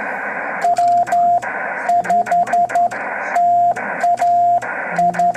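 Morse code sent by hand key as a single steady mid-pitched beep, keyed on and off in dots and dashes that spell the call sign W5TAH (.-- ..... - .- ....), over a constant shortwave radio hiss. There is a faint click at the start and end of each dot and dash.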